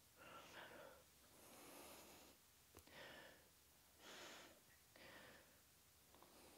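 Faint, close breathing of a woman under exertion while holding a side plank, about one breath every second, with a tiny click near the middle.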